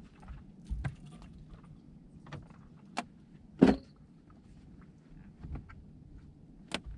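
Scattered knocks and clicks of handling in an aluminium fishing boat, with the loudest a single thump about three and a half seconds in.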